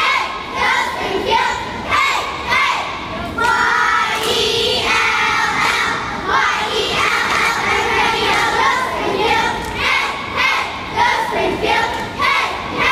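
A squad of young girl cheerleaders shouting a cheer together in a steady, rhythmic chant.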